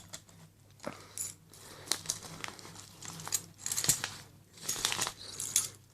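Key turning in the lock of a Chubb 1k70 handcuff, a turn and a half to release the double lock, with a series of small metallic clicks and rattles.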